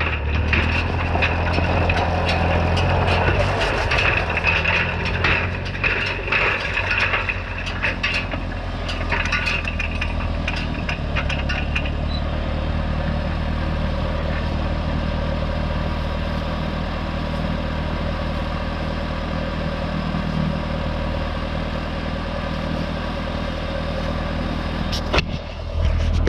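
Tractor engine running steadily while pulling a hay rake, with irregular sharp pops and clicks over roughly the first half. The pops come from something wrong in a hub, which the farmer finds but does not stop for, since it is still raking.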